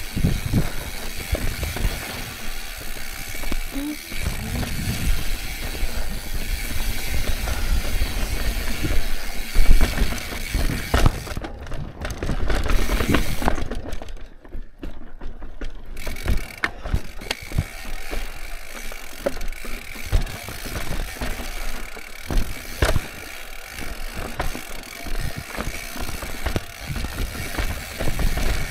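Mountain bike riding down a rough dirt and rock trail: tyres crunching over the surface, the bike rattling and knocking over bumps, and the rear hub ratcheting while coasting. Wind rumbles on the microphone, and there is a sharp knock a little under ten seconds in.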